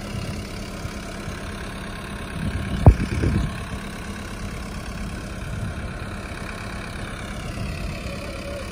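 Tractor diesel engine idling steadily in deep paddy-field mud, with a single sharp thump about three seconds in.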